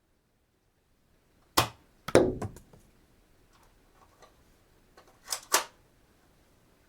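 Dart gun being fired and cocked. A sharp click comes first, then a loud quick rattling shot with a thump, a few faint clicks, and near the end a two-part cocking clack.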